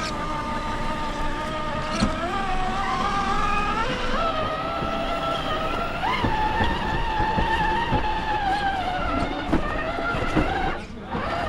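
RC rock crawler's electric motor and geared drivetrain whining as it drives, its pitch stepping up several times, then dropping out briefly near the end.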